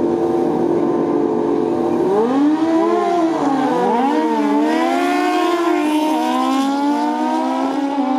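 Two drag-racing motorcycles, one of them a Kawasaki Z1 with its inline-four bored to 1197cc, running at the start line. From about two seconds in, their engines rev up and down sharply. Then, as they launch and pull away, the engine pitch climbs steadily through the last couple of seconds.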